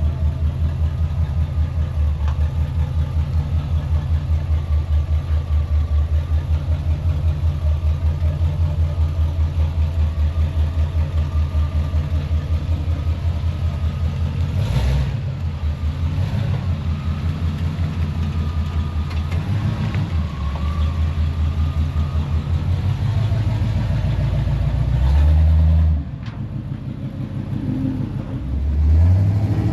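A 1978 Chevrolet C10 pickup's engine running through a newly welded aftermarket exhaust with a steady, evenly pulsing idle. Later its note changes, and it swells louder twice near the end.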